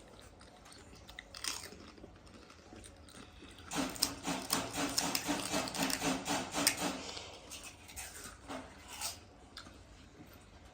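Chewing and crunching of golgappe (crisp, water-filled puris), with a dense run of crunching mouth sounds from about 4 to 7 seconds in and a few single crunches around it.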